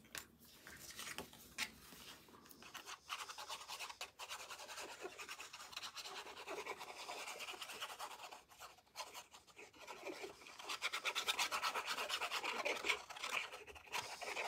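Fine nozzle of a squeeze bottle of liquid craft glue rubbing and scratching over cardstock as squiggly lines of glue are drawn across it, a steady fine scratching that gets busier a little after ten seconds in.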